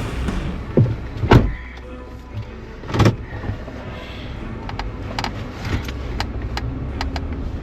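Road and engine rumble inside a moving Jeep's cabin, with three heavy knocks in the first three seconds and then a scatter of small sharp clicks and rattles.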